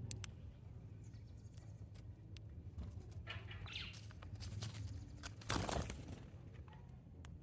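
Sparrows at a backyard bird feed: scattered sharp clicks and brief rushes of flapping wings, the loudest about five and a half seconds in.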